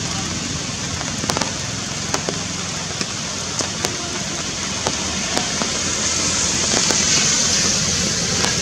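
Steady forest background noise: a high-pitched hiss that swells about six seconds in, over a low hum, with scattered sharp clicks and crackles.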